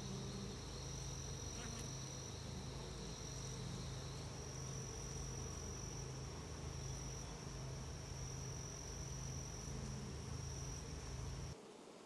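Honey bees humming on a brood frame, a steady low drone, with a thin high-pitched tone above it that breaks off briefly now and then; it all cuts off suddenly just before the end.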